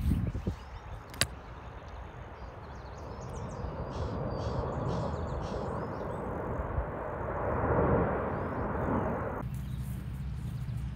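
Outdoor ambience: a rushing noise that swells to a peak and then cuts off abruptly, with birds chirping faintly. A thump at the start and a sharp click about a second in stand out above it.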